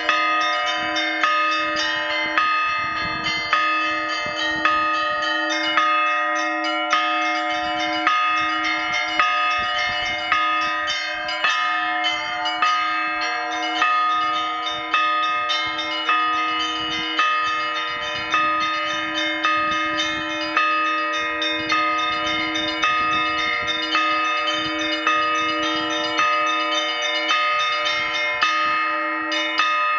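Russian Orthodox church bell ringing (zvon), led by a new 120 kg blagovestnik cast at Vladimir Shuvalov's foundry. A steady beat of about one stroke a second runs under quick, continuous chiming of the smaller rope-pulled bells.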